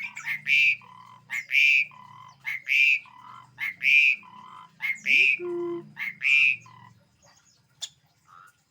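Javan pied starling (jalak suren) calling over and over, a loud buzzy high note followed by a lower note, repeated about every second and a quarter. It stops about seven seconds in.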